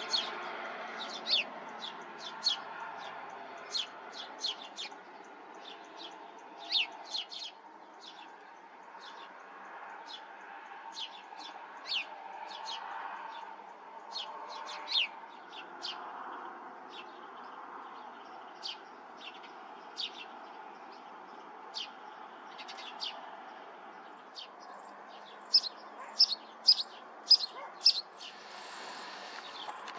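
Small songbirds chirping: a steady scatter of short, sharp, downward-sliding chirps, with a quick run of louder chirps near the end.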